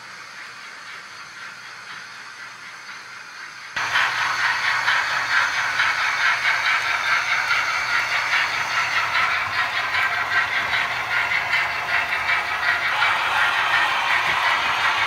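OO gauge model trains running on the layout's track. The sound is faint at first, then about four seconds in it turns abruptly into a loud, continuous rattle and clatter of wheels on rail, with a low steady hum beneath.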